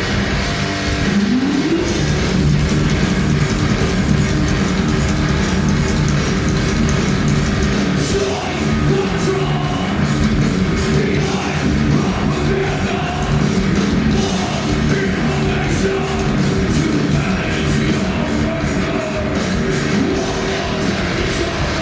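Heavy metal band playing live: distorted electric guitars, bass and drums, loud and continuous, recorded from within the crowd. There is a short rising slide about a second in.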